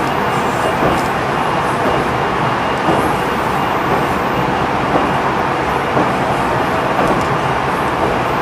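JR Central 373 series electric multiple unit running at speed, heard inside its motor car: a steady rumble of wheels on rail with a faint steady whine over it.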